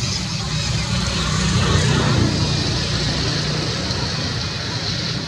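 A motor vehicle's engine running steadily, a low rumbling hum that swells for a moment about two seconds in.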